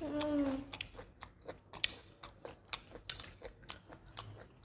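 A short hummed 'mm' at the start, then close-miked chewing of firm mango slices: a run of small crunching clicks, about three a second.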